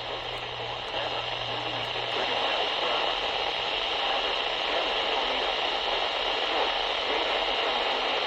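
Steady static hiss from a weather-radio receiver as the weak, distant broadcast drops out under the noise. A low hum underneath stops about two and a half seconds in.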